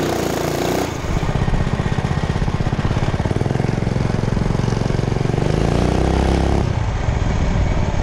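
Mini bike's small generator-type single-cylinder four-stroke engine running under way with a fast, steady putter. The revs rise for a second or so, then fall away sharply about seven seconds in.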